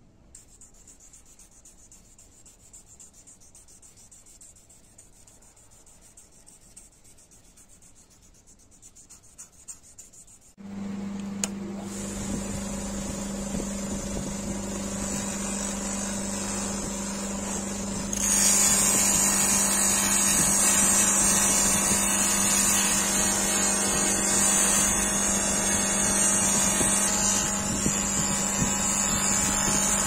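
Faint rustle of a sandpaper strip being handled. About a third of the way in, a bench buffer is switched on and its motor runs with a steady hum. From a little past halfway, polishing compound and then a small knife part are pressed against the spinning buffing wheel, adding a loud, steady hiss.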